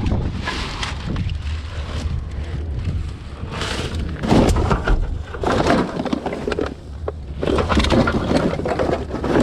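Rubbish being rummaged through and handled: irregular rustling and clattering in uneven bursts, over a steady low rumble.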